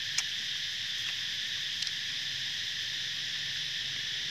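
Steady high-pitched drone of an insect chorus, with a couple of faint clicks in the first two seconds.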